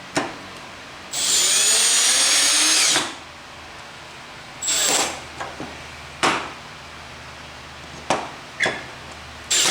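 Cordless drill/driver on its lowest setting, fastening the table saw's parts: one steady run of about two seconds with a high whine starting about a second in, a short burst near the middle, then a few short knocks.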